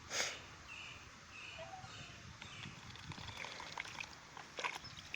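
Pet goose splashing and dabbling in a small bowl of water: a short splash just after the start, light trickling, and a few small splashes near the end. A series of short high bird chirps, about two a second, runs through the first half.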